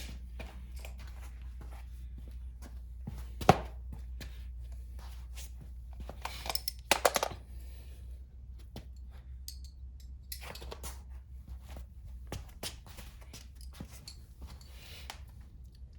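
Hand tools and metal parts being handled on a dirt bike's rear chain adjusters: scattered clicks and knocks, one sharp knock about three and a half seconds in, and short scraping rustles around seven and eleven seconds in, over a steady low hum.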